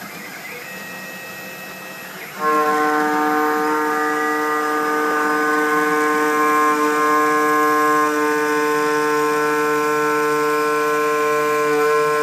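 CNC milling machine's 12.7 mm three-flute end mill at 7000 rpm, feeding at 1000 mm/min with a 5 mm depth of cut and 3 mm stepover, cutting a metal block under flood coolant. It makes a steady multi-pitched whine over a hiss, which jumps sharply louder about two seconds in and then holds.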